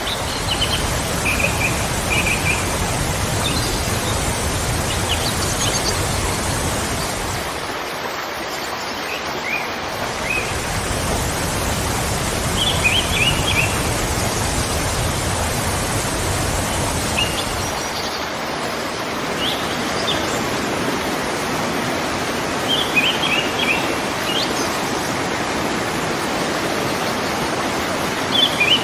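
Steady rushing of a waterfall, with small birds chirping in short bursts above it now and then.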